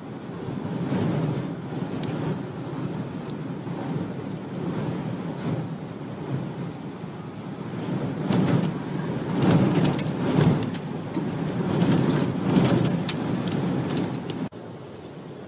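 Tornado-driven wind and heavy rain buffeting a moving car, heard from inside the cabin: a rushing roar that swells in gusts, loudest in the second half, with scattered sharp hits on the car. It drops off abruptly about a second before the end.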